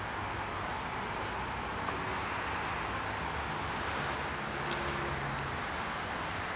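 Steady outdoor background noise, an even hiss with a few faint clicks.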